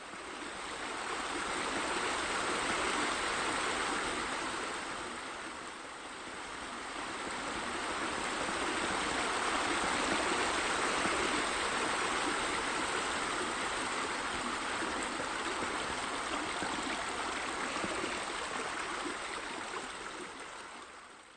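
Stream running with a steady rush of water, dipping briefly about six seconds in and fading out at the end.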